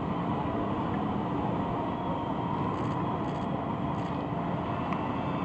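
Many Harley-Davidson motorcycles riding together in a slow procession, their V-twin engines blending into one steady, dense mass of engine noise.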